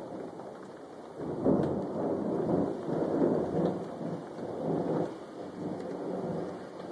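Thunder rumbling in several rolling swells, starting about a second in and dying away after about five seconds, over a steady hiss of rain.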